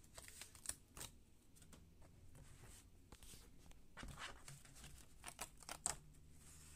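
Faint rustling and crackling of cut paper being handled and lifted off the cutter's cutting mat, with scattered light clicks. It gets busier from about four seconds in.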